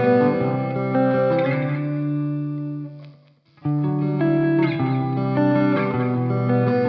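Instrumental intro of a pop-rock song: a guitar plays ringing chords through effects. About halfway through it dies away to a brief near-silent gap, then comes back in.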